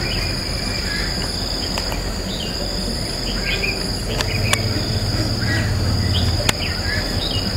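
Steady high-pitched insect drone, with short bird chirps every second or so. A low hum swells in the middle, and there are a few faint clicks.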